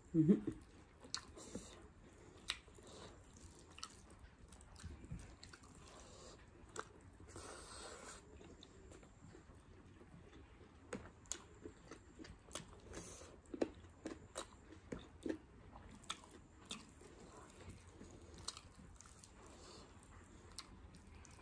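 A person eating close to the microphone in a mukbang: chewing and biting with irregular wet smacks and mouth clicks, and one longer soft hiss about seven seconds in.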